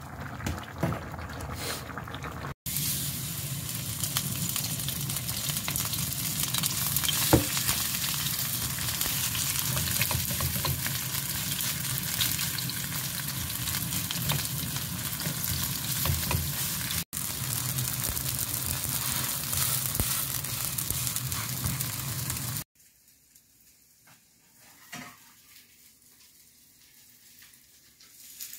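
Chive-pancake (buchujeon) batter with shrimp and carrot sizzling as it fries in a non-stick frying pan, with a wooden spatula stirring and spreading it. The sizzle cuts off suddenly about three-quarters of the way through, leaving near silence.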